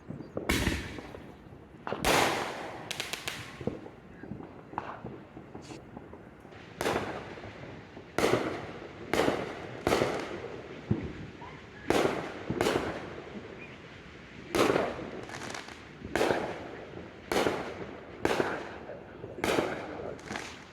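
Fireworks exploding in a long string of sharp bangs, each trailing off briefly. The bangs come irregularly at first, then roughly one a second.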